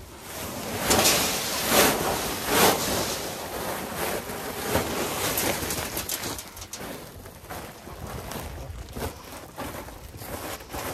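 Cattle feed pouring out of a freshly opened 50-kilo feed sack, a rushing hiss that swells about half a second in, is loudest over the next couple of seconds and eases off after about six seconds.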